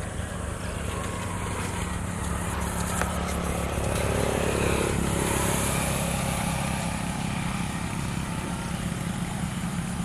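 A motorcycle passing along the embankment road, its engine growing louder to a peak about halfway through and then easing off, over a steady low rumble.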